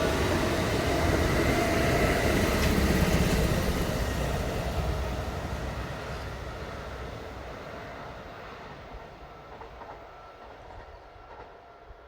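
Kintetsu Kyoto Line electric train passing on the track, loudest about two to three seconds in, then fading steadily as it moves away.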